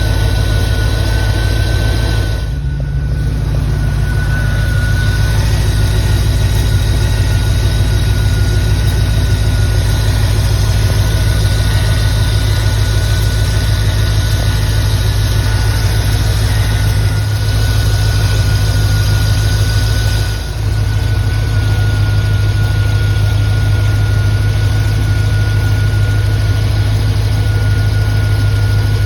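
1993 Chevrolet Corvette C4's V8 idling steadily while air is bled from its cooling system, with a steady high whine alongside the engine's hum.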